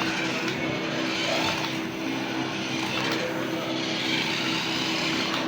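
Radio-controlled toy car driving, its small electric motor and gears whining at a steady pitch over tyre and rolling noise that swells and fades.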